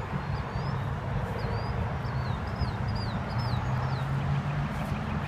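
Small birds chirping in short, quick notes over a steady low rumble of road traffic.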